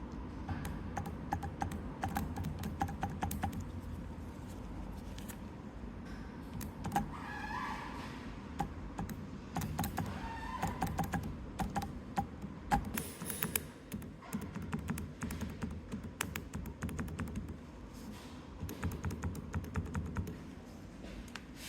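Rapid, irregular light clicks and taps over a steady low hum, with a brief hiss about thirteen seconds in.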